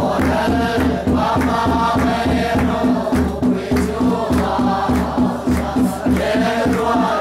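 A group of men singing together in unison, a chanted song with a steady beat.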